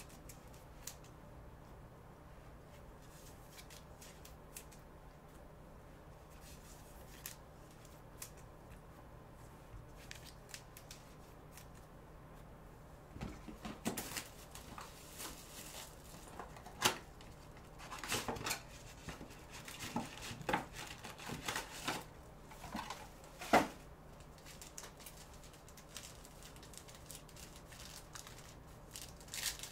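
Trading-card pack wrappers being handled and torn open by hand: rustling and crinkling with sharp clicks and snaps, starting about halfway through. Before that there are only a few faint ticks.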